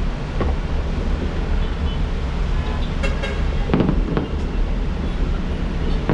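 Steady low rumble of city traffic with a short car-horn toot about three seconds in, followed by two dull thumps.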